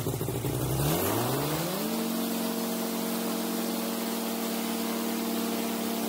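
Paratrike's engine and propeller opening up from low revs to full takeoff power. The pitch rises steeply about a second in and then holds steady at high revs as the wing lifts overhead.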